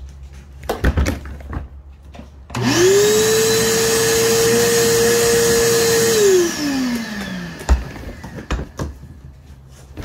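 Shop vacuum switched on about two and a half seconds in, running with a steady whine and a rush of air for about three and a half seconds, then switched off, its whine falling in pitch as the motor spins down. A few knocks of handling come before and after.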